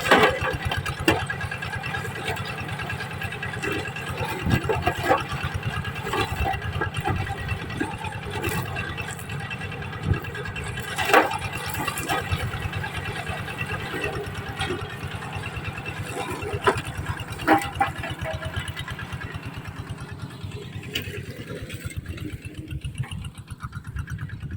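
The engine of a sugarcane stubble-shaving machine running steadily at working speed, with a sharp knock every few seconds.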